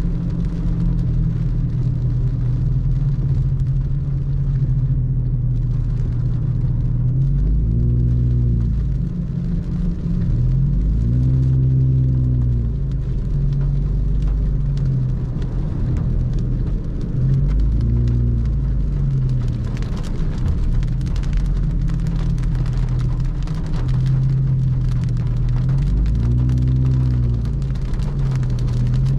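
Car engine and road noise heard from inside the cabin while driving, the engine note rising and falling several times as the car speeds up and slows. From about two-thirds of the way in, rain patters on the car.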